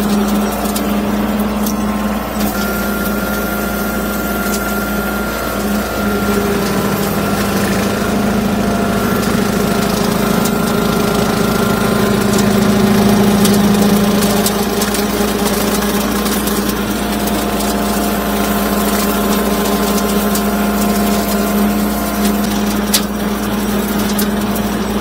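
Bobcat CT2025 sub-compact tractor's diesel engine running steadily under work, with a slight swell about halfway through. A few sharp clicks or snaps sound over it, the clearest near the end.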